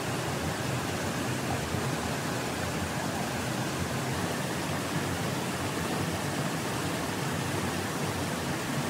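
Steady rushing of a stream flowing over rocks.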